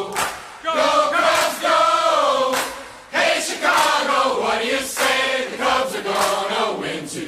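A group of voices singing or chanting together in phrases, with short breaks about half a second and three seconds in.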